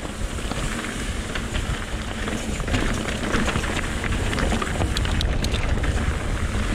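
Fast mountain-bike descent: wind rushing over the microphone as a low rumble, with many sharp clicks and knocks from the tyres and bike running over rocky trail.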